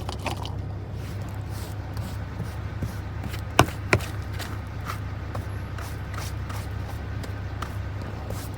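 Knocks and small clicks of objects being handled while a truck cab is cleaned out, with two sharp knocks in quick succession about halfway through, over a steady low hum.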